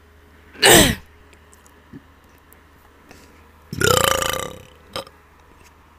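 Two deliberate burps. A short, loud one about half a second in drops in pitch; a longer one a few seconds later settles onto a steady pitch, followed by a brief click.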